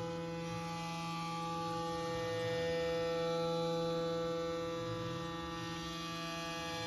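Tormach CNC mill's spindle driving an end mill through aluminium under flood coolant: a steady hum with many steady tones stacked above it. The end mill is dull and struggling in the cut.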